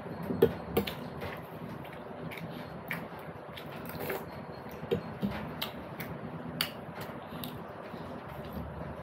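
Close-up eating sounds of jeri (jalebi) and puri being eaten: chewing, with scattered short clicks and taps, a few sharper ones, about half a second in, near five seconds and near six and a half seconds.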